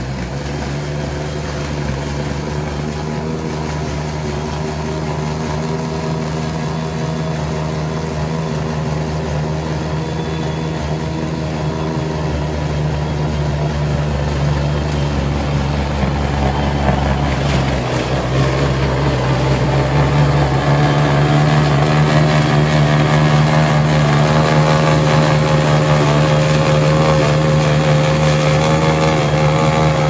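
PowerSmart 80V battery-powered two-stage snowblower running with a steady motor hum as it clears wet, slushy snow, growing louder as it comes closer.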